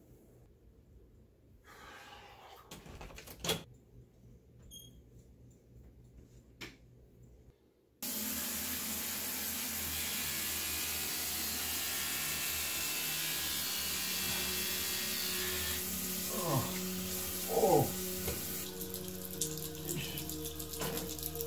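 A few soft clicks in near quiet, then a bathroom tap running into the sink, starting abruptly and running steadily. Two short falling sounds come near the end.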